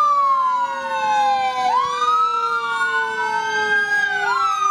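Fire engine sirens wailing together. Their pitches sweep slowly up and down and overlap, while a lower tone sinks steadily underneath.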